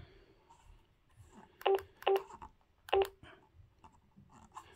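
Key beeps from a Wurui D300 DMR mobile radio as its menu buttons are pressed: three short beeps, two close together about a second and a half in and a third about a second later, each with a soft button click, then a few faint clicks near the end.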